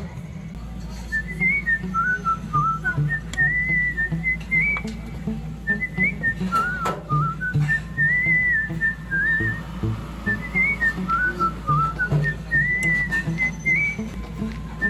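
Background music: a whistled melody over a low, steady beat, its phrase repeating every few seconds, coming in about half a second in.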